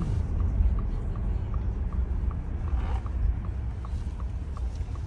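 Ford F-150 turn-signal indicator ticking steadily, about three ticks a second, over the low rumble of the truck's cab on the move. A brief rustle about three seconds in.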